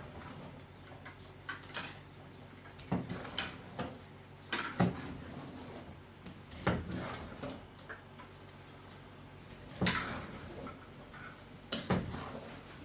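A series of irregular knocks and clatters of objects being handled, about ten sharp strikes spread unevenly, with short gaps of a second or two between them.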